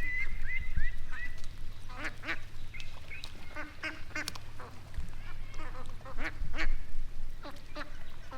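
Ducks quacking, a string of short repeated calls.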